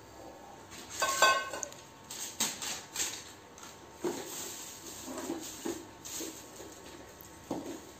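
The metal inner pot of an electric rice cooker clanks once with a short metallic ring about a second in. Smaller knocks and handling noises follow as the cooker's parts are moved about.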